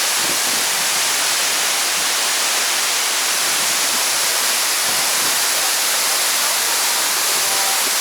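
Rushing water of a waterfall: a loud, steady hiss of falling water.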